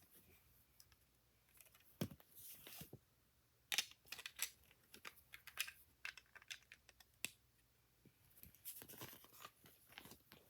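Faint handling of plastic Lego pieces: scattered small clicks and short rustles as bricks are picked up and fitted together.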